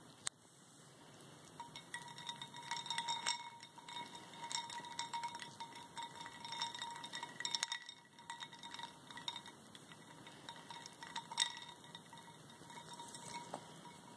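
Ice cubes clinking against each other and the sides of a ceramic water bowl as a ferret noses and paws through them: a long string of light, ringing clinks, the loudest one about eleven seconds in.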